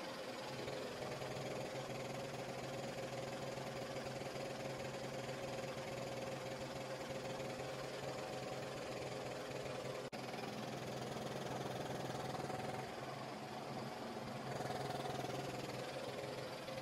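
PVC pipe factory machinery running with a steady hum, with a brief break about ten seconds in.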